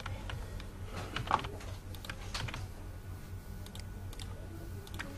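Typing on a computer keyboard: irregular, scattered keystrokes with pauses between them, over a low steady hum.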